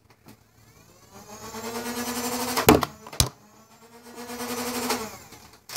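A small electric motor whining steadily twice, each run building up over about a second, with two sharp knocks between the runs.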